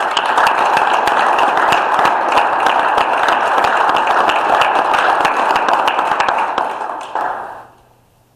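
Audience applauding, with many hands clapping, which dies away near the end.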